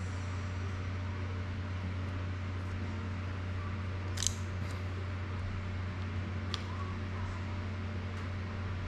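Steady low hum and hiss of a fan-like room noise, with two small sharp clicks, about four and six and a half seconds in, as the plastic-and-carbon drone frame and prop guards are handled.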